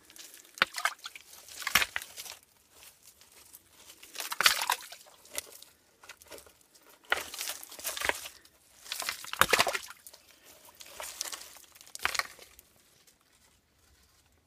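A hand digging and scraping through damp soil, dead leaves and small stones, in irregular bursts of rustling with a few sharp clicks, fading out near the end.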